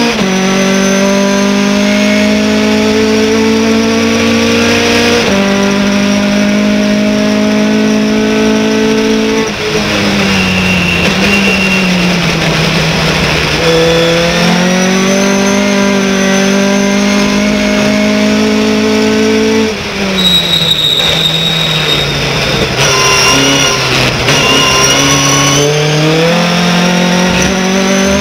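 Race pickup truck's V8 engine heard from inside the cabin under hard acceleration. Its pitch holds and creeps up on the throttle, falls twice as it slows, about ten and twenty seconds in, then climbs again.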